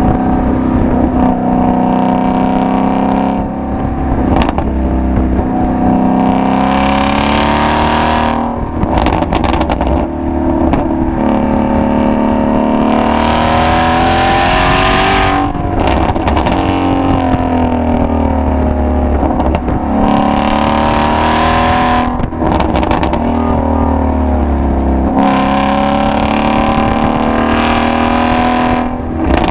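Ford Shelby GT350's 5.2-litre flat-plane-crank V8 under hard acceleration. The exhaust note climbs through the revs and drops back at each shift or lift, four or five times over. There are a few short sharp cracks from the exhaust as the throttle closes.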